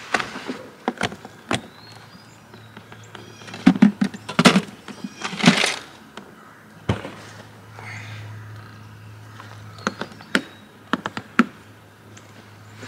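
Rummaging in a hard-sided cooler in a pickup bed: a string of irregular knocks and clatters, busiest about a third of the way through, as cans are shifted and a beer can is pulled out.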